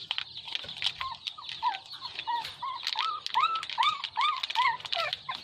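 A chicken clucking: a run of short rising-and-falling notes, about three a second, starting about a second in. Light crinkling and clicking of a plastic snack packet being handled runs underneath.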